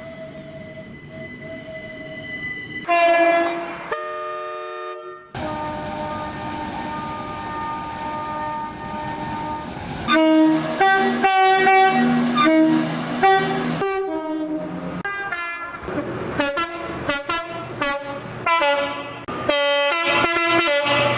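British train horns, several clips cut one after another. A faint steady note opens, then a long held blast, then repeated two-tone high-low toots, and a run of short sharp blasts near the end, with abrupt changes between clips.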